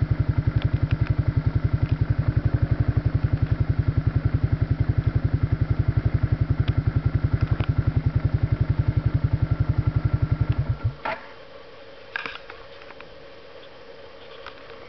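An engine idling with a steady, quick low beat, which stops abruptly about eleven seconds in, leaving a few faint clicks.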